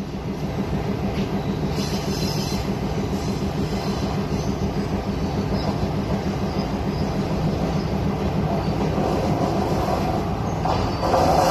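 A passenger train running at speed, heard from an open carriage doorway: a steady rumble of wheels on the track with a low hum under it. About 11 seconds in, the sound grows louder as an oncoming train nears on the adjacent track.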